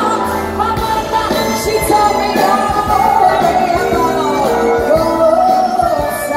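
Live band with upright bass, banjo, piano, drums and horns playing, with a melody of long, bending notes over it.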